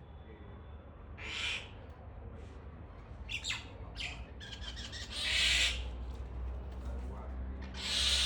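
Birds calling from a tree: about five short, hissy calls at irregular intervals, over a steady low rumble.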